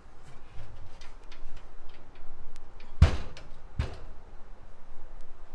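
Handling noises from a mini tower PC case being moved and turned: light clicks and taps, then two sharp clunks about three seconds in, less than a second apart, the first the louder.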